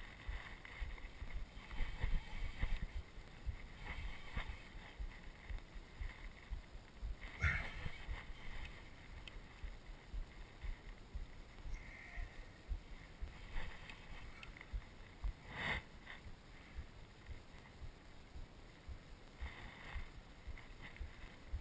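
Irregular low rumbling of wind and handling on a GoPro's microphone, with two sharp knocks, about seven and a half and fifteen and a half seconds in.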